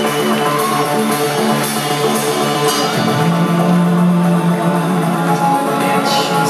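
Live rock band playing loud through a venue PA, recorded from the audience: electric guitar and bass with keyboards, the low notes switching to a held lower note about three seconds in.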